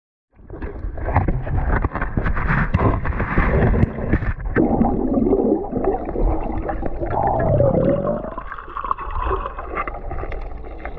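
Muffled underwater sound picked up by a submerged camera: water rushing and bubbling, with scattered clicks and knocks. It cuts in suddenly from silence just after the start.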